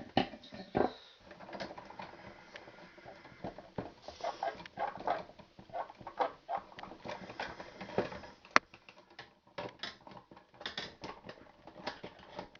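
Irregular small clicks, scrapes and rustles of solid copper electrical wires and a wire nut being handled and twisted together into a pigtail joint, with one sharp click about two-thirds of the way through.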